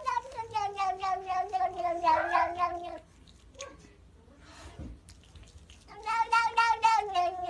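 A domestic cat giving two long, drawn-out yowling meows, each falling slightly in pitch and wavering with an even pulse. The first ends about three seconds in, and the second starts about six seconds in.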